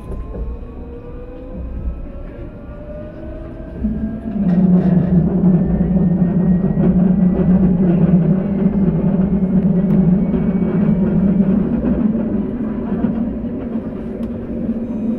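Alstom Citadis tram accelerating, its electric traction motors giving a rising whine. About four seconds in, a loud steady low drone sets in and holds.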